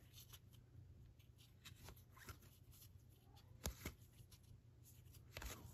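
Faint handling of trading cards: soft clicks and slides as cards are thumbed off one stack onto another, with one slightly louder click a little past the middle.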